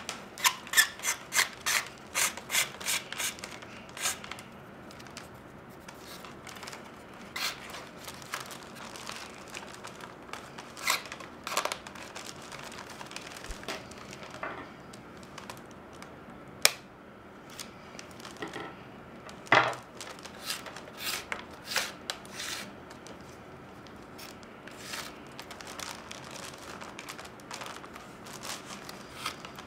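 Flat reed lashing being pulled through a basket's rim and weave, giving dry scraping and rubbing strokes: a quick run of them at first, then scattered ones with an occasional sharp click.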